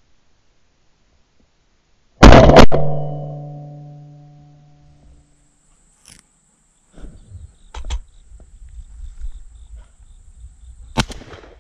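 A single very loud shotgun shot about two seconds in, with a ringing tail that fades over a couple of seconds. Quieter rustling and handling noises follow.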